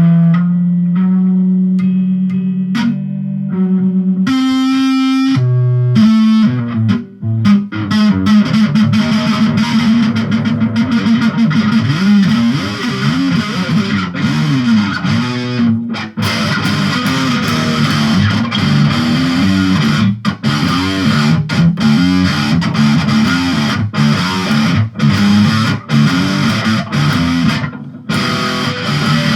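Distorted electric guitar tuned to drop D, played fast: some held, bent notes at first, then about six seconds in a run of rapid shredding with many bends and short breaks.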